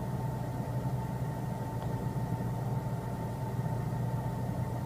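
Steady mechanical hum with a faint, constant high whine over it, like a motor running without change.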